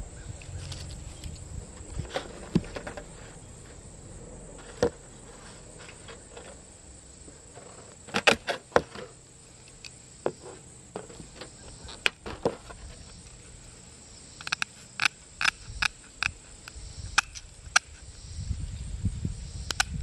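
Metal aviation snips cutting 1/8-inch stainless steel screen: sharp snipping clicks, a cluster about eight seconds in, single snips around ten and twelve seconds, then a run of quick snips in the last few seconds.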